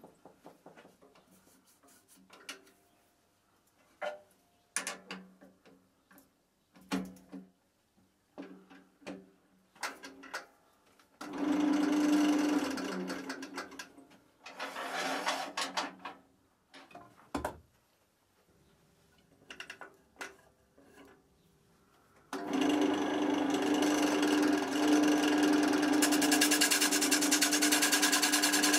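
Wood lathe winding down, then scattered knocks and clicks as the oak blank is remounted, with a short run of the motor about halfway. Near the end the lathe starts up and runs with a steady hum, and a bowl gouge cuts into the spinning off-centre oak blank, adding a rough hiss over the motor.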